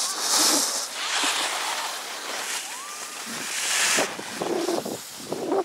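Skis scraping and hissing over a groomed snow piste during a fast descent, with wind rushing on the action camera's microphone. The hiss swells with the turns, loudest about half a second in and again about four seconds in.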